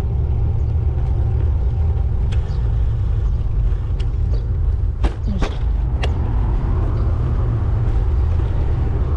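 Wind and road noise on a camera microphone while riding a road bike: a loud, steady low rumble. A few sharp clicks come between about two and six seconds in.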